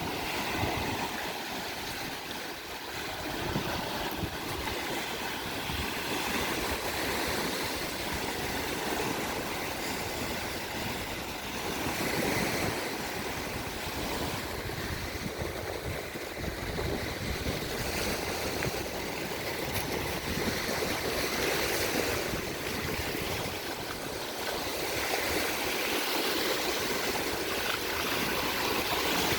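Small sea waves washing onto the beach, a steady rush of surf that swells and eases every few seconds.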